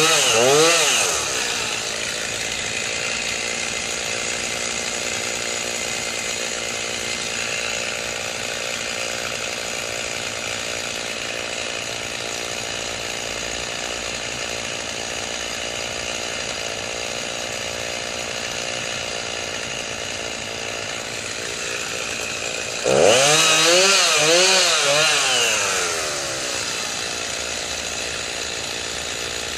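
Chainsaw engine running steadily at idle, revved up hard right at the start and again for about three seconds about three quarters of the way through, its pitch wavering up and down while at high revs.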